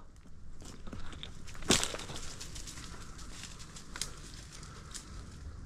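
Footsteps and rustling through dry scrub undergrowth, twigs and dead leaves crackling, with a sharper snap about a second and a half in.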